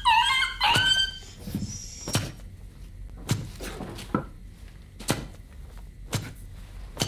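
High squealing yelps in the first second, then a run of dull thuds about once a second, the blows of a kitchen knife being stabbed down again and again.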